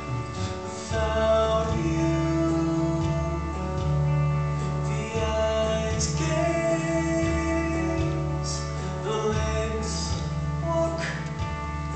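Live musical-theatre singing with band accompaniment, with long held notes over the backing.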